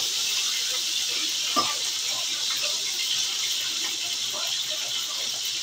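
Hamburger patties sizzling in a frying pan on the stove, a steady hiss, with one sharp knock about one and a half seconds in.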